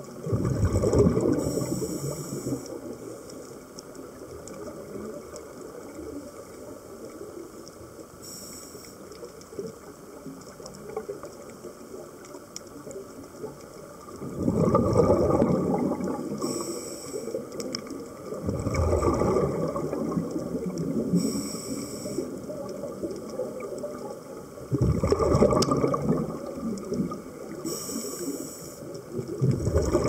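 Scuba diver breathing through a regulator underwater: rumbling bursts of exhaled bubbles lasting a second or two, with a short hiss of inhalation through the regulator between them. The breaths come quicker in the second half, about every five seconds.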